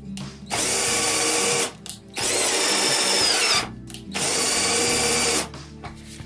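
Cordless drill driving the threaded bar of a router table's rise-and-fall mechanism in three runs of about a second and a half each, with short pauses between. The motor's whine sags near the end of some runs.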